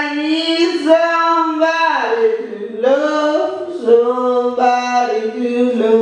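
A single voice singing a melody of held notes that step up and down, with no accompaniment.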